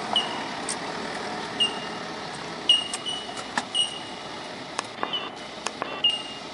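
Four-wheel drive jolting slowly over a rutted dirt track: a steady rush, with short high squeaks every second or so and sharp knocks and rattles as it rides over the ruts, the knocks coming thicker in the second half.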